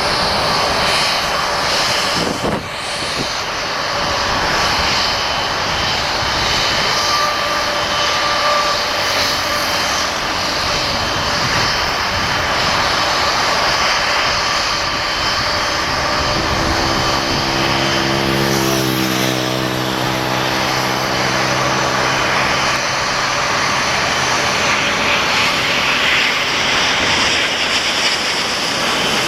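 Airbus A350-900 with Rolls-Royce Trent XWB turbofans on landing approach: a loud, steady rush of jet noise. Partway through, a low droning tone joins in for several seconds, with a whine that falls in pitch near its start.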